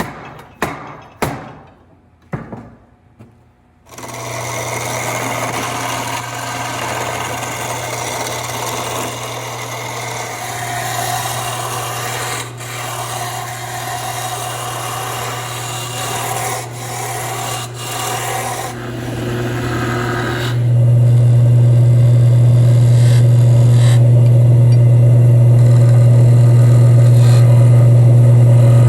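Wood lathe running with a steady motor hum while a turning tool scrapes and cuts the spinning wood, a rasping noise over the hum. It opens with a few sharp knocks, and about 20 seconds in the hum grows much louder.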